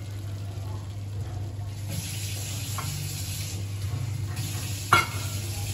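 Thick chicken curry sizzling in a kadai, a steady hiss over a low hum, with a single sharp knock about five seconds in.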